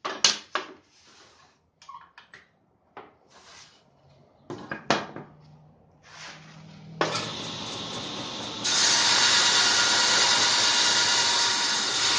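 Wood and tools clattering and knocking as the work is handled, then a table saw switches on about seven seconds in and runs steadily, growing louder about nine seconds in.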